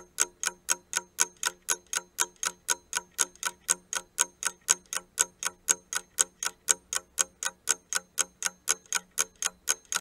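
Ticking-clock sound effect for a quiz countdown timer: even, sharp ticks at about four a second, stopping as the countdown reaches zero.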